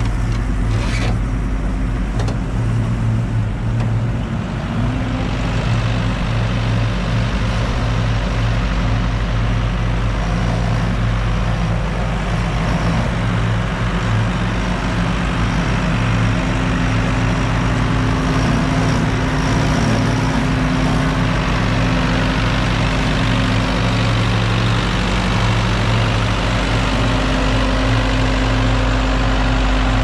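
Diesel engine of a JCB telehandler loader running steadily while it works its hydraulic arm, scooping silage and lifting it into a feed mixer wagon.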